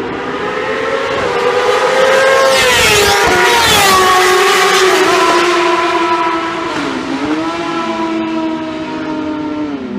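Superbike engines at high revs racing past. The loudest bike goes by about three seconds in, its pitch falling as it passes. Later the engine notes dip and climb again twice.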